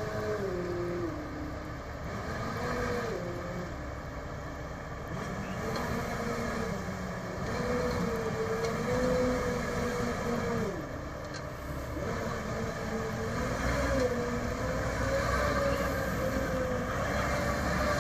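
Fat Truck off-road vehicle's engine running under load as it crawls over rock moguls, its revs dropping and rising again several times.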